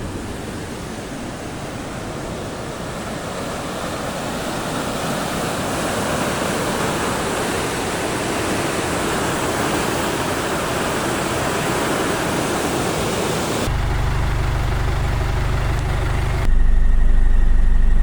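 Muddy white water of a river swollen by heavy rain, rushing loudly and steadily. About fourteen seconds in it cuts off abruptly to a vehicle engine running with a steady low hum, which grows louder near the end.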